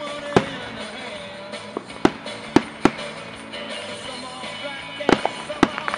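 Aerial firework shells bursting with sharp bangs: one just after the start, a cluster of three or four about two seconds in, and another quick cluster about five seconds in. Music plays underneath from a radio.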